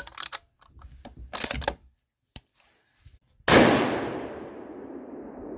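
A single shot from a .22-250 Ruger M77 bolt-action rifle about three and a half seconds in, its report ringing out and fading slowly. Before it come a few light clicks and knocks.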